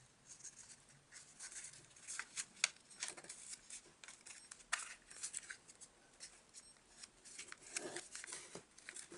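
Faint rustling and crackling of a sheet of origami paper as hands fold it and press the creases flat, in scattered small crinkles and taps.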